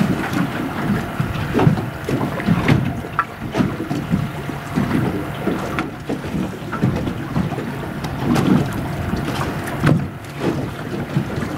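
Wind buffeting the microphone in uneven gusts, with scattered light knocks.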